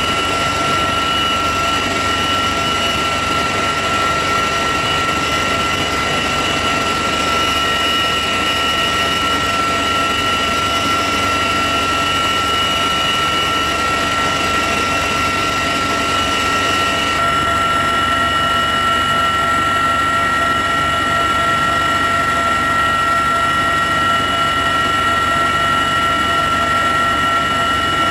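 Cabin noise inside a CH-53E Super Stallion heavy transport helicopter: a loud, steady drone of rotor and turboshaft engines, with several high, constant whine tones running through it.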